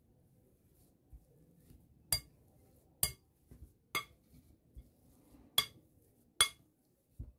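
A steel potato masher clinking against a glass mixing bowl as boiled potatoes are mashed. There are five sharp clinks, each with a brief ring, roughly a second apart, and a softer pair near the end.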